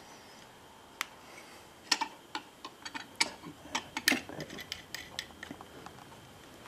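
Irregular light metallic clicks and taps, a dozen or so, as a homemade water-cooled cylinder head is handled and set down onto a Briggs & Stratton engine's cylinder; the loudest are about two and four seconds in.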